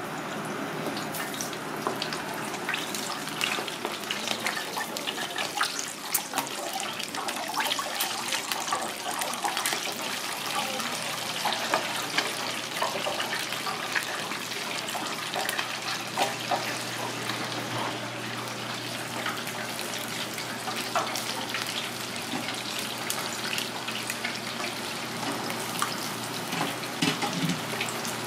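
Floured monkfish pieces deep-frying in a fryer of hot oil: a steady sizzle full of small crackles and sharp pops.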